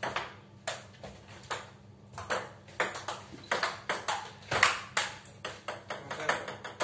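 Table tennis rally: the celluloid-type ball clicking off the bats and bouncing on the table, a string of sharp ticks at about three a second.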